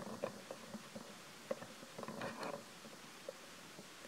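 Faint soft clicks and a brief rustle about two seconds in, from a newborn macaque shifting against its mother's fur as she holds it to her chest.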